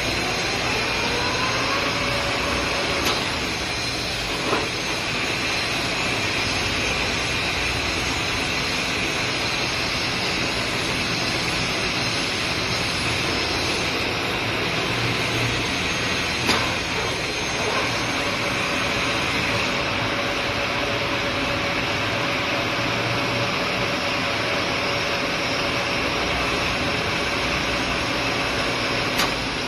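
Metal lathe spindle spinning up with a rising whine, then running steadily while machining a steel stud bar for an M45 x 3.0 mm thread. A few sharp clicks come through the steady running noise.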